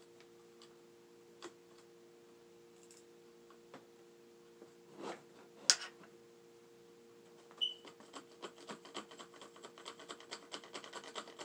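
Scattered faint clicks, one sharp click about halfway, then a quick run of scrapes and clicks, several a second, from about two-thirds in, as a paintball gun barrel is jabbed repeatedly to work loose a paintball stuck inside.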